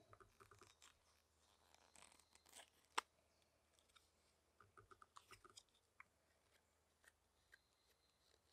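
Carving knife slicing thin shavings from a wooden spoon: faint crisp cuts and scrapes in small clusters, with one sharper click about three seconds in.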